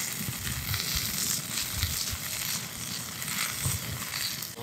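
Meat sizzling on a grill grate over an open wood campfire, with the fire crackling and hissing steadily.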